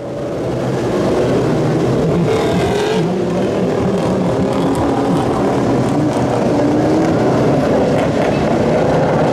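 Engines of several lightning sprint cars running on the dirt oval, their overlapping engine notes wavering up and down in pitch. The sound fades up during the first second.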